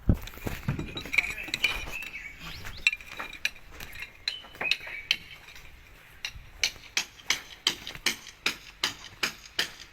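Hammer blows, sharp and clinking, on slab-edge shuttering; scattered at first, then a steady run of about three strikes a second through the second half. Faint voices in the first few seconds.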